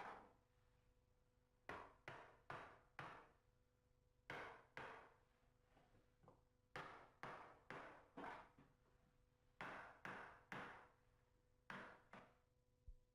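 Hammer knocking a tongue-and-groove floorboard into place: about sixteen sharp knocks in short runs of two to five, with brief pauses between the runs.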